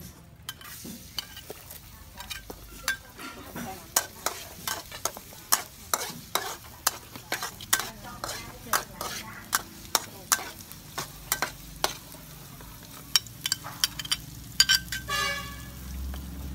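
Garlic and chopped chili stir-fried in a stainless steel wok: a metal spatula knocks and scrapes against the pan about once or twice a second over a faint sizzle. A horn sounds near the end.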